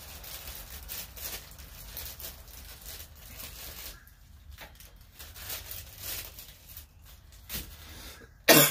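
Rustling and small clicks of parts being handled, thinning out halfway through, then one short, loud rustle or knock near the end.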